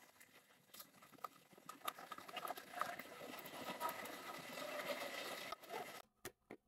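Tri-wing screwdriver driving the small screws back into a Joy-Con's plastic shell: faint scratchy rasping and clicking that grows louder, stops about six seconds in, then a couple of separate clicks.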